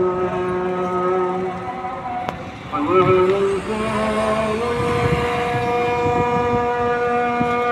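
A muezzin's call to prayer (adhan) from a mosque loudspeaker: long, ornamented sung notes held for several seconds, with a short break about two and a half seconds in, marking the Maghrib (sunset) prayer.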